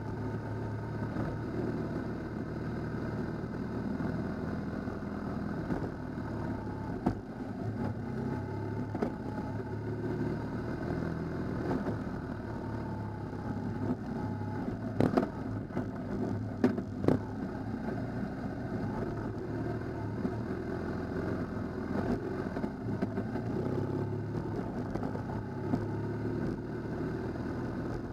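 Adventure motorcycle engine running steadily at road speed on a gravel track, heard from the bike-mounted camera. A few sharp knocks come about halfway through.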